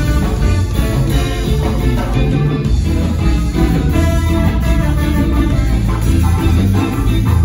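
Ska-jazz band playing live, instrumental: electric guitar, tenor saxophone and trombone over bass, drum kit and congas, with a steady beat.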